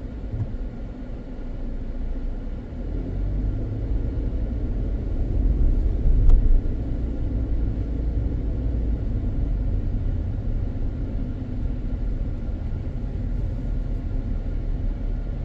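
A car driving slowly, with a steady low road and engine rumble that swells a little about six seconds in.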